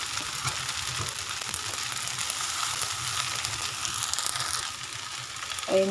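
Rice vermicelli and bean sprouts sizzling steadily in a hot wok, with faint scrapes and taps of a metal spatula stirring them.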